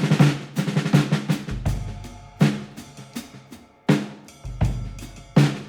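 Drum-led background music: quick drum hits with deep bass drum booms about every three seconds.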